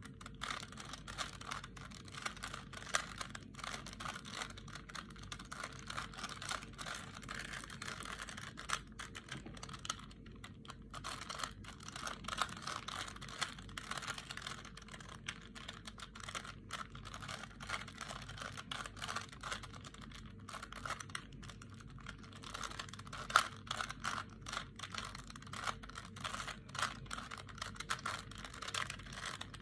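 3x3 Rubik's Cube being solved by hand, its plastic layers clicking and clacking in quick, uneven runs as they are turned, with a couple of brief pauses.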